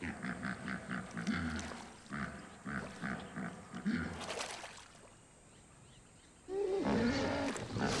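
Hippopotamus calling in a rapid series of honking grunts, about three or four a second, for the first four seconds. After a short pause, a louder splashing and churning of mud and water begins near the end as a hippo thrashes in the shallow mud.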